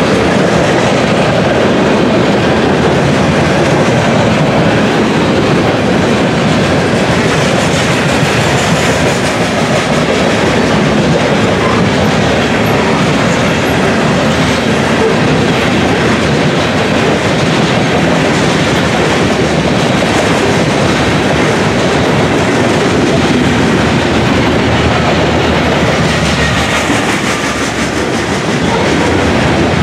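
Covered hopper cars of a freight grain train rolling past close by: a steady rumble and clatter of steel wheels on the rails.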